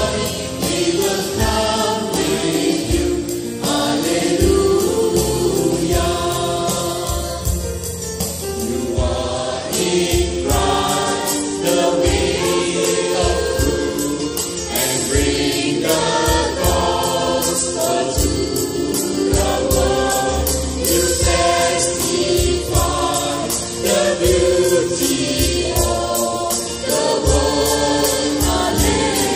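Christian worship song sung by a group of men's and women's voices in chorus, over instrumental accompaniment with a steady beat.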